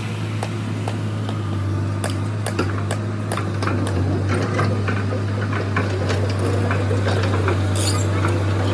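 Earthmoving machine's diesel engine running steadily with a low hum, with irregular clicks and knocks over it that come more often after about two seconds.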